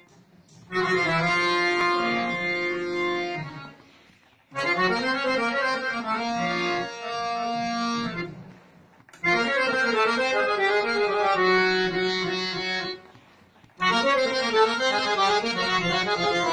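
Paul & Sons harmonium, a hand-pumped reed organ, being played: melodic phrases over held chords, in four stretches of a few seconds each with brief pauses between them.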